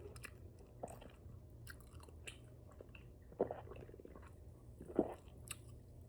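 A person chewing spicy chicken wings dipped in ranch with an open mouth, with scattered wet lip smacks and clicks. Two louder smacks come about three and a half and five seconds in.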